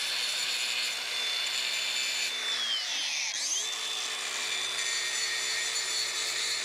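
Cordless angle grinder running with a steady high whine as it grinds paint off a steel T-post. It spins down about two and a half seconds in, then spins back up a moment later and runs on.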